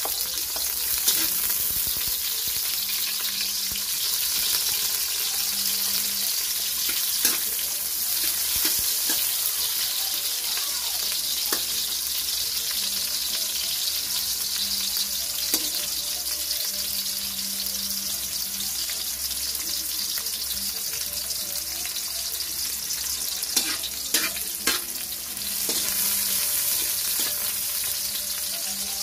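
Ginger and onion sizzling in hot oil in a metal wok: a steady frying hiss, with a few sharp clicks and taps of a metal spatula against the pan, a cluster of them late on.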